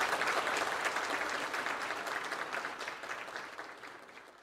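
Audience applauding, a dense even clapping that dies away toward the end.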